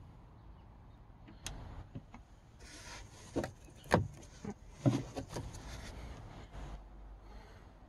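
A few short knocks and rustling from handling and moving about on the carpeted deck of an aluminium boat, the loudest knock about four seconds in.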